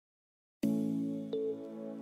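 Background music starting about half a second in after a brief silence: held chords with a new note coming in about a second later.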